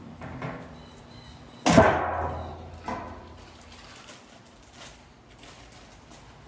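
A loud, sudden metallic clank from the spout cap latch on a steel jerry can, about two seconds in, dying away over about a second. A smaller knock follows, then the crinkling of a plastic bag handled in the hands.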